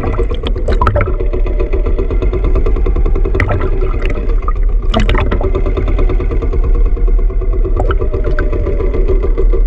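Fishing boat's engine running steadily, with a few short knocks or splashes at about one second, three and a half seconds, five seconds and eight seconds in.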